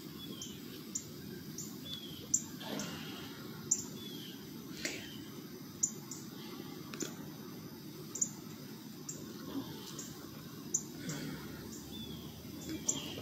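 Small birds chirping: short high chips repeated every half second or so, with a few curved chirps in between, over a steady low outdoor background rumble. A few brief clicks stand out as the loudest sounds.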